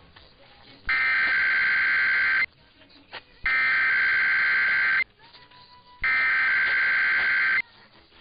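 Emergency Alert System SAME header: three identical bursts of harsh digital data tones, each about a second and a half long with a second's pause between them. This is the coded data burst that opens an EAS test.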